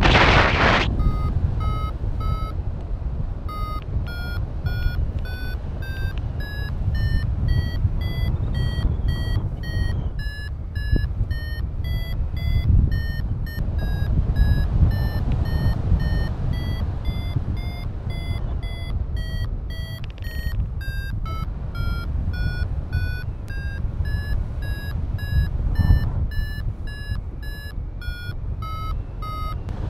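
Paragliding variometer (XCtracer Mini IV) beeping a steady train of short tones. Their pitch climbs over the first several seconds, sags, drops around twenty seconds in, then rises again; the pitch follows the climb rate, so this is the pilot climbing in a thermal. Wind rushes on the microphone underneath.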